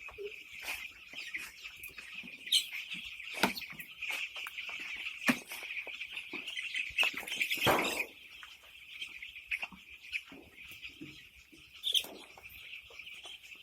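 Many chickens chirping together in a continuous high-pitched chorus, with scattered short calls and clicks and a louder rustling burst a little past halfway through.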